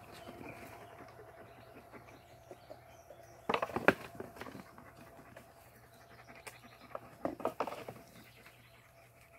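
Horned rams crowding and shoving while feeding on grain: low scuffling, with two short bursts of knocks and scrapes, about three and a half seconds in and again around seven seconds in.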